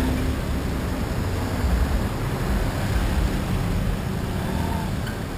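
Steady rumble of wind and road noise from a scooter moving through traffic, picked up by a camera mounted on the scooter.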